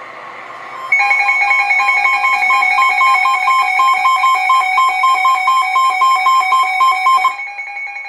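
Emergency alert tones from a NOAA weather radio announcing a new warning: after about a second of hiss, a loud alert beeps rapidly, about four or five beeps a second, over a steady tone. The beeping stops about a second before the end, leaving the steady tone quieter.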